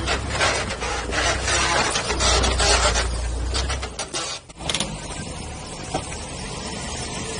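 Off-road 4x4 driving over rough rocky ground: the engine runs low under a gritty crunching and scraping. The sound dips briefly about four and a half seconds in, then goes on quieter and smoother.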